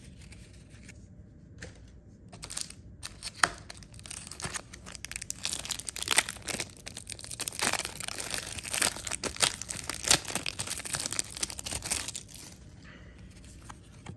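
A trading card pack's wrapper being torn open and crinkled: a dense run of small crackles and tearing sounds, starting about two seconds in and stopping shortly before the end.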